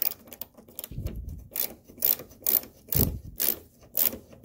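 Ratcheting tap handle clicking as an M6 x 1.0 tap is turned by hand to cut threads in a bolt hole, short sharp clicks about twice a second with a couple of duller knocks.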